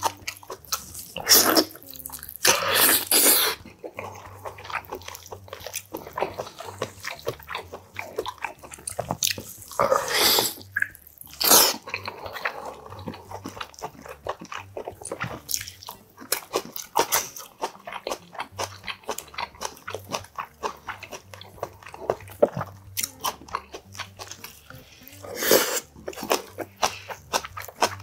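Close-miked chewing and lip-smacking as boiled beef oxtail is eaten off the bone, a steady run of small wet clicks with a few louder mouth noises about a second, three seconds, ten seconds, eleven seconds and twenty-five seconds in.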